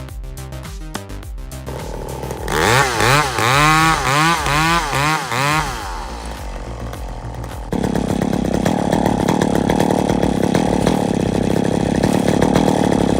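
Chainsaw engine revved in quick repeated blips, its pitch rising and falling about twice a second, then held steadily at high revs from about eight seconds in.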